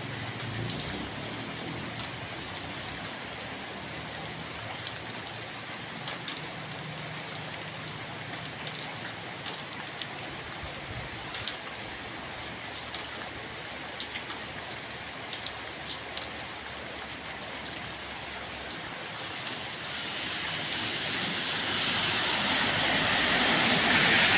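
Steady rain falling on leaves and wet concrete, with scattered drops tapping close by. The rushing swells louder over the last few seconds.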